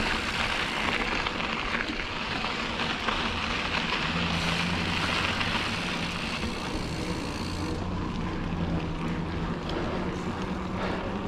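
A mountain bike ridden along a dirt trail, a steady rushing noise of riding. A low steady hum joins about four seconds in.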